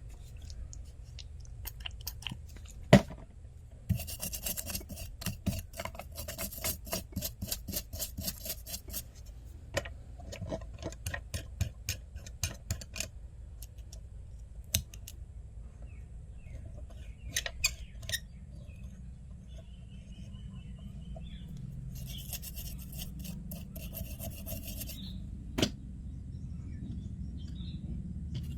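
Quick repeated scraping strokes of a small hand tool on a chip or circuit board, in two runs, with a few sharp clicks, the loudest about three seconds in.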